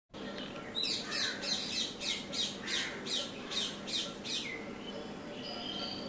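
Indian ringneck parakeet giving a run of about ten shrill, falling screeches, two to three a second, which stop about four and a half seconds in.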